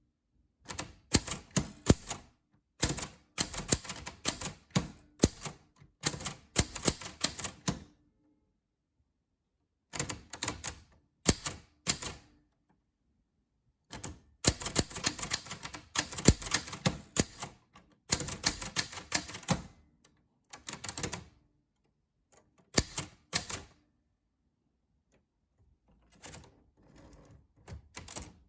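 Typewriter keys being struck in quick runs of clacks, broken by pauses of a second or two, with lighter strokes near the end.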